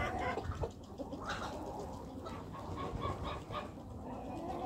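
Chickens clucking: a scatter of short, repeated calls.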